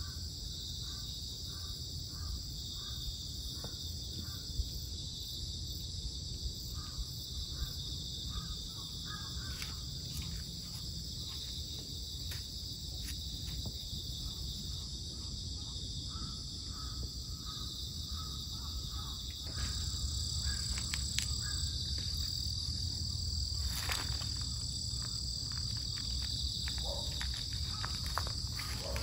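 A steady, high-pitched chorus of insects, with faint bird calls now and then and a few light clicks in the second half.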